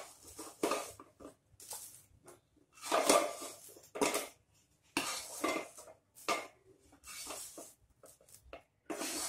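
A wooden spatula scraping inside a kadhai, pushing a cooked coconut-and-mawa ladoo mixture out onto a plate. The strokes come as about a dozen short, irregular scrapes and taps.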